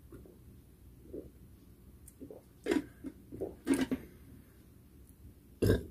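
A man swallowing a drink from a bottle, then several short throaty bursts in the middle and a loud cough near the end.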